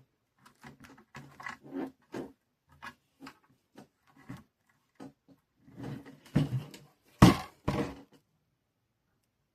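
Craft materials being handled and set down on a work surface: a run of light taps and rustles, with a few louder knocks close together near the end.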